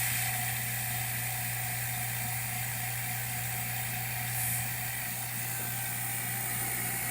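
Electric vacuum pump running steadily as it draws the air out of a bell jar, a low hum under an even hiss.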